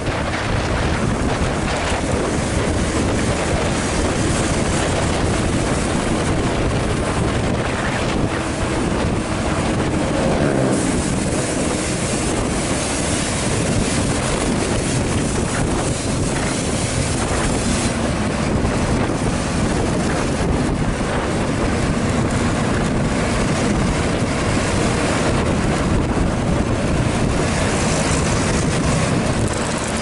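Steady wind rushing over the microphone, over the engine and tyre noise of travelling close behind a moving intercity bus.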